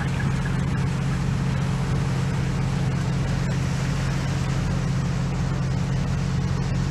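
Long-tail boat's engine running steadily under way, a constant low drone with an even rushing noise over it.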